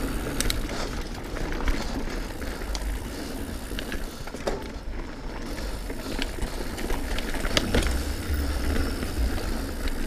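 Diamondback Release 3 mountain bike rolling down a dirt singletrack, with tyre and ground noise, wind rumble on the helmet-level action camera, and scattered sharp clicks and rattles from the chain and frame over bumps.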